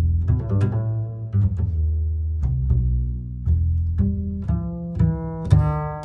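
Background music: a melody of short notes, each starting sharply, over a low bass line.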